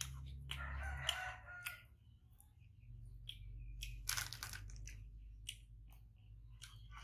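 A rooster crows once, about half a second in, for a little over a second. Around four seconds in a plastic snack wrapper crinkles briefly, among small crunches and clicks of crackers being broken and eaten.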